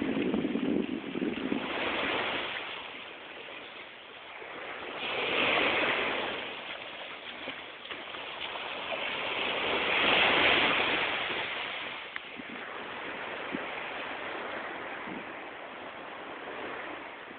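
Small waves washing up on a sandy beach, the surf swelling and fading every few seconds.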